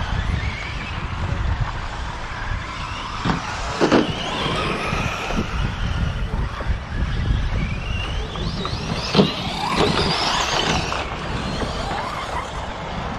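Electric RC short-course trucks racing on a dirt track: motors whining up and down in pitch with the throttle, over a low rumble, with a few sharp knocks, the loudest about nine seconds in.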